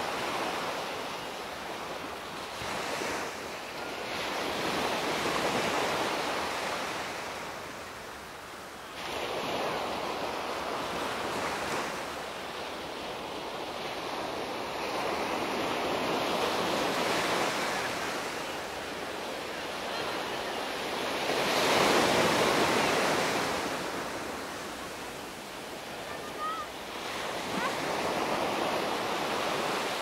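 Small waves breaking and washing up a sandy beach, the surf swelling and fading in a slow rhythm about every five seconds. One wave about two-thirds of the way through is the loudest.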